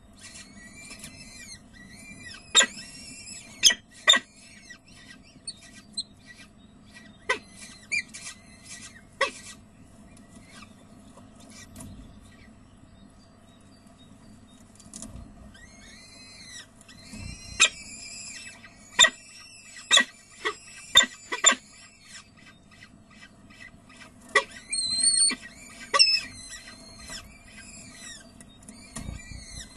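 Peregrine falcon chicks giving thin, high begging calls in bouts of rapid short notes while being fed, broken by sharp clicks that are the loudest sounds, over a low steady hum.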